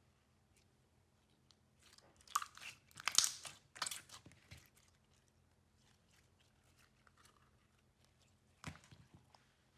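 Clear slime being squeezed and kneaded by hand, giving a dense run of small wet clicks and pops about two to five seconds in and a shorter run near the end.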